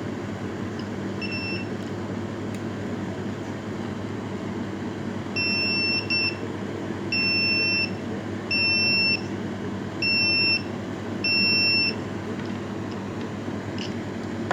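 Electronic fire alarm beeper sounding: one short high-pitched beep about a second in, then after a pause five longer beeps, each lasting under a second and about a second and a half apart. A steady low hum runs underneath.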